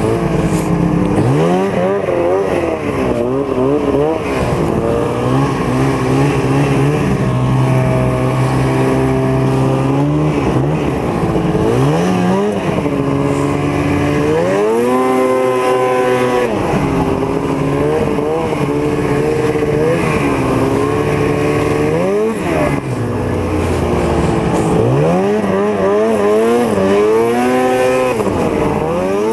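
Snowmobile engine running while under way, its pitch climbing and dropping again and again as the throttle is opened and eased.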